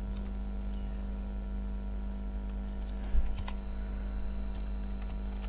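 Steady electrical mains hum on the recording, with a short low bump about three seconds in and a few faint clicks.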